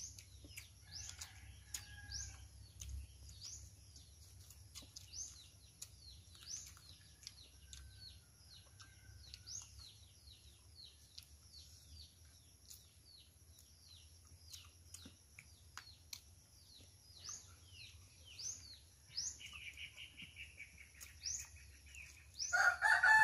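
Small birds chirping repeatedly, short high calls about two a second, with a few lower whistled notes among them. Near the end a rooster starts crowing loudly.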